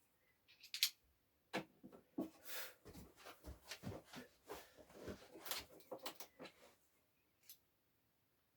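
Faint, irregular small clicks, knocks and rustles of hands working on the cupboard hardware where screws are loose. The clicking stops about seven seconds in, and one last click follows.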